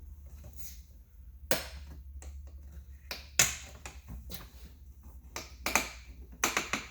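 Sharp plastic clicks and taps from a 2020 Audi SQ5 side-mirror housing being pushed and worked by hand, its clips snapping: a handful of separate clicks, the loudest about three and a half seconds in, over a low steady hum.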